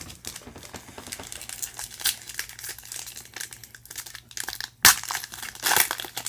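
Foil wrapper of a trading-card pack being handled and torn open: a run of small crinkles and crackles, a loud sharp crack a little under five seconds in, then a burst of crinkling as the wrapper is pulled apart.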